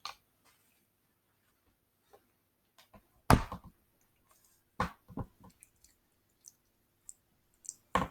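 A few short sharp taps, the loudest a little over three seconds in and a second, weaker one nearly two seconds later, with faint small clicks between and quiet in the gaps.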